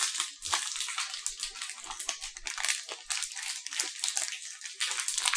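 Crinkly snack wrapper being handled and pulled open by hand, a dense run of crackles.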